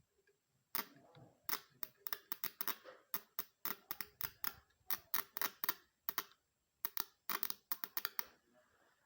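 A rapid, irregular series of sharp mechanical clicks, two to four a second, starting about a second in and stopping shortly before the end.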